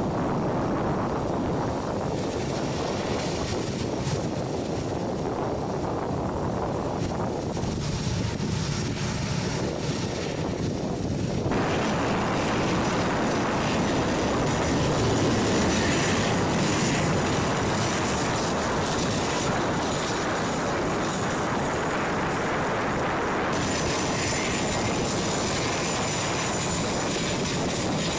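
A-10 Thunderbolt II jets' TF34 turbofan engines running: a steady rushing jet noise that turns brighter, with a thin high whine, about two-fifths of the way in and dulls again near the end.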